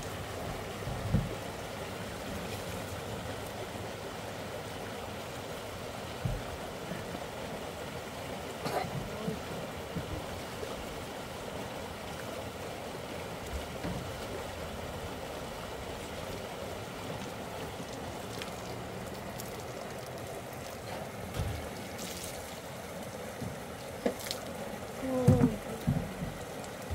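Steady rush of running water, with scattered light knocks and rustles from handling, and a few louder sudden sounds near the end as a garment is shaken out.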